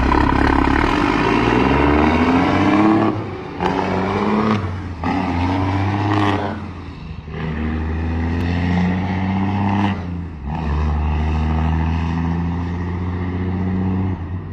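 Diesel semi truck pulling away under load, its engine pitch climbing through each gear with short breaks at the gear changes, about four shifts in all.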